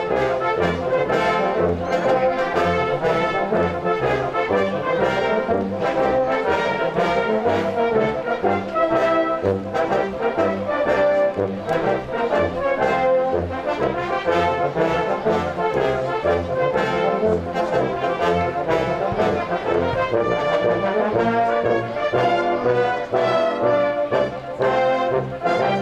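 Brass band playing a march, with a regular low drum beat under the brass.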